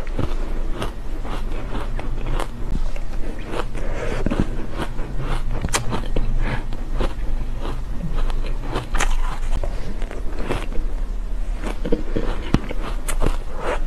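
Close-miked crunching and chewing of a mouthful of soft, powdery shaved ice: many irregular crisp crunches. A metal spoon scrapes and scoops at the ice now and then.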